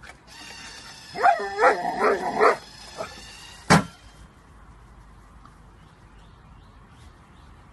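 Dog yipping excitedly, a quick run of several high calls, followed about a second later by a single sharp knock. A faint steady high whine sounds under the calls and stops at the knock.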